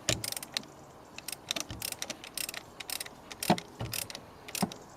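Socket ratchet clicking and metal tools clinking in short, irregular bursts as a 27 mm socket is worked on the oil filter housing. There are a couple of louder knocks about three and a half seconds in and shortly before the end.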